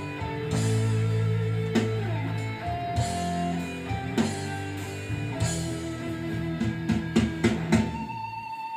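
Backing music of the song being rehearsed, led by guitar over a drum kit, with a run of drum hits in the second half.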